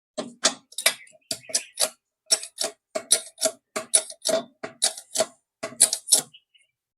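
Sharp metal-on-metal clicks and taps, irregular at about three a second, many with a brief ring, as a new shaft is worked into the rotor of a small exhaust fan motor.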